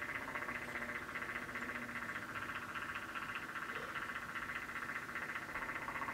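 Small electric motor of a tumbler cup turner running steadily, a fine rapid buzz as it rotates the mug.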